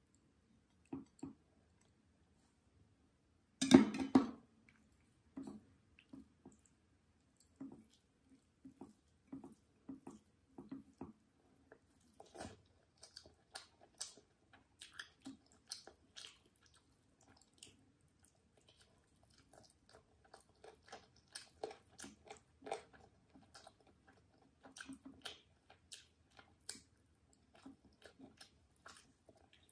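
Close-miked eating sounds: fingers squishing and mixing rice with chicken in gravy on a plate, and chewing, heard as many short scattered clicks and wet noises. One louder knock about four seconds in.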